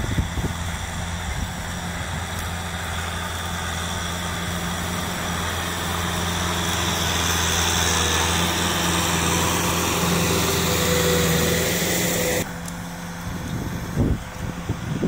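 Kubota farm tractor's diesel engine running steadily under load while working a dry field, growing gradually louder. About twelve and a half seconds in, the sound drops suddenly to a quieter engine.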